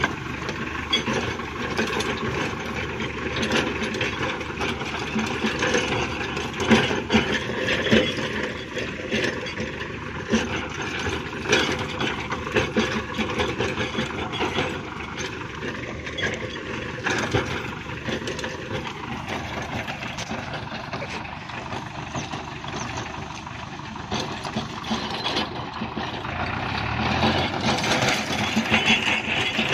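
Tractor engine running under load while a PTO-driven Rattan rotary tiller chops through roadside weeds, with a steady clatter and rattle of the blades hitting vegetation and soil. It gets somewhat louder near the end.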